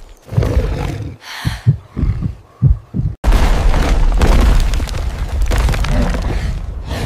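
Sound-design effects: a run of five or six deep, irregular thumps. About three seconds in, these cut sharply to a loud, continuous low rumble of a charging rhinoceros kicking up dust.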